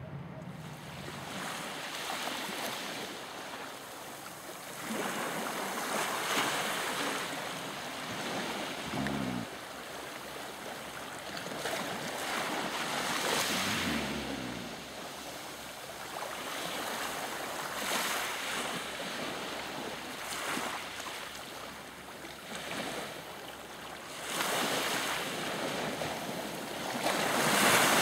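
Small sea waves washing onto a pebble shore, swelling and easing every few seconds, with some wind. Twice a brief low tone falls in pitch.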